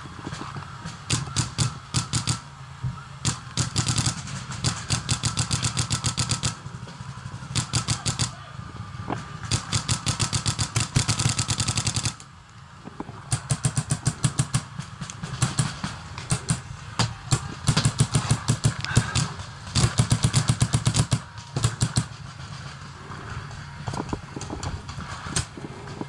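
Electronic paintball markers firing long rapid strings of shots, many per second, with short pauses about six, twelve and twenty-one seconds in.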